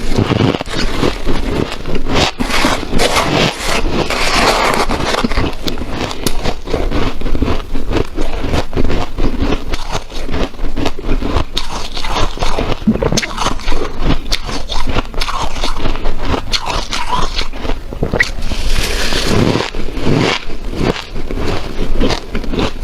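Close-miked chewing of snow-like powdery hard ice: a dense, unbroken run of crunches, loud throughout.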